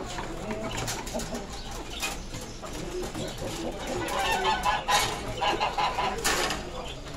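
Chickens clucking, with a run of quick clucks from about four to six and a half seconds in, and a few short sharp knocks or rustles.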